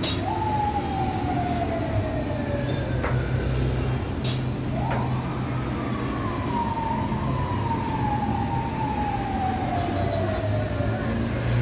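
A siren wailing twice: a slow falling wail, then a quick rise about five seconds in that slowly falls away again, over a steady low hum.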